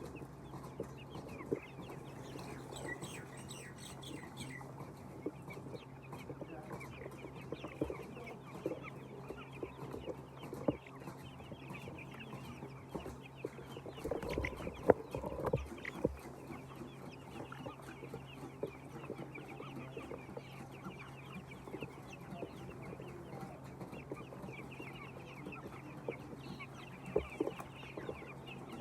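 A flock of laying hens clucking and chirping continuously, many birds at once, with a steady low hum underneath and a louder burst of sound about halfway through.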